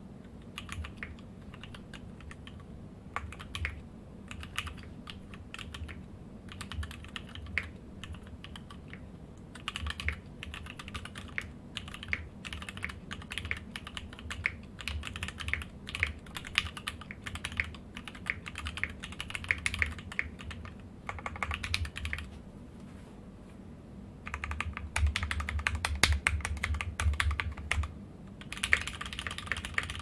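Typing on an Eclipse FRL mechanical keyboard with a POM plate and Mekanisk Ultramarine switches: a fast, continuous clatter of keystrokes. It pauses for about two seconds past the two-thirds mark, then comes back louder.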